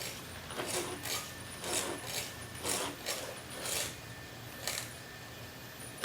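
Xiaomi Mi robot vacuum moving in short spurts, a string of brief mechanical whirring swishes about two a second that die away about three-quarters of the way through.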